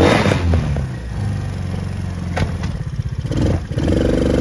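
ATV engine running under throttle: a loud rev at the start whose pitch falls away over the first second, uneven running through the middle with one sharp clack, then the revs climbing again near the end.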